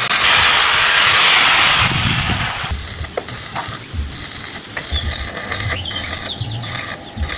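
Stick (arc) welder's arc crackling steadily for about two seconds as a bead is laid on a steel wheel rim to thicken the weld, then it stops. Scattered light knocks and clicks follow.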